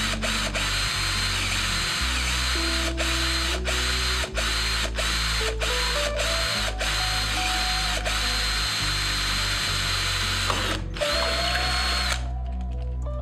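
Electric drill running in repeated short pulses, its high whine starting and stopping every second or so over a steady hiss. It cuts off about a second before the end, leaving background music.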